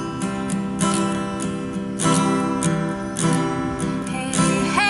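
Acoustic guitar strummed in steady chords.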